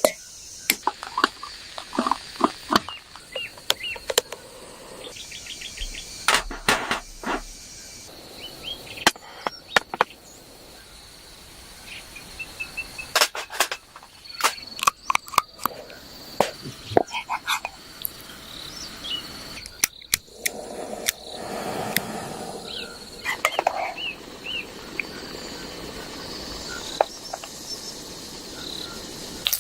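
Scattered light clicks and knocks, like things being handled, over an outdoor background of insects and occasional bird chirps.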